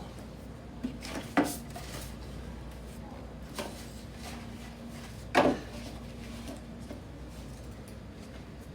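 Quiet room tone with a faint steady hum, broken by a couple of short, light knocks; the sharpest comes about five and a half seconds in.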